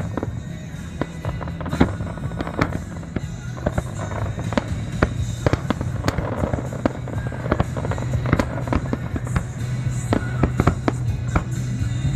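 Aerial fireworks shells bursting in quick succession: many sharp bangs and crackles, over steady background music.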